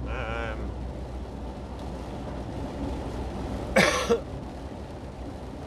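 A man coughs about four seconds in, a short harsh burst with a smaller catch just after, over the steady low drone of the lorry's engine and road noise inside the cab.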